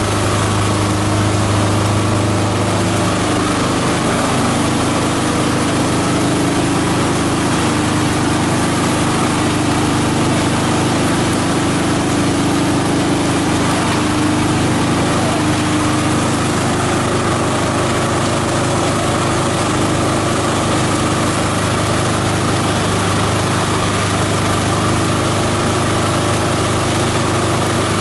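Esteban 9-in-1 multi-purpose chopper-shredder running steadily while shredding green plant material, a loud, continuous mechanical hum with a low drone. Its pitch drops slightly about three seconds in.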